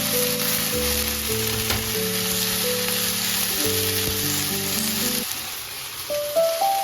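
Chicken breast and komatsuna sizzling as they are stir-fried in oil in a frying pan, under steady background music.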